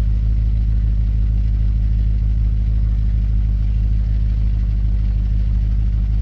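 Stock exhaust of a 2007 Audi RS4 B7's 4.2-litre V8, idling steadily with a deep, even note, with S (sport) mode enabled.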